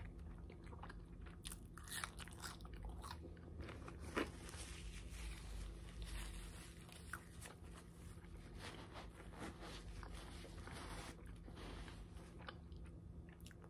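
A person biting into and chewing a soft fish sandwich close to the microphone: faint wet mouth sounds with scattered small crunches and clicks, one a little louder about four seconds in.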